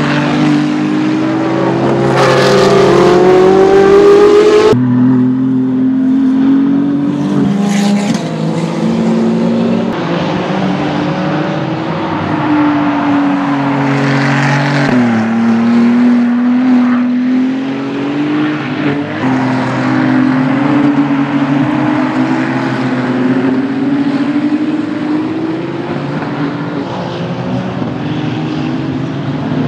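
Ferrari 296 Challenge race cars' twin-turbo 120° V6 engines running hard on track over several passes. The engine note climbs steeply under acceleration and steps down between gears.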